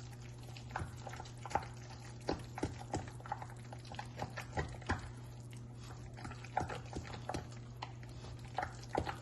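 A spoon stirring mashed potatoes with sour cream in a pot: irregular wet squishes and light knocks of the spoon, over a steady low hum.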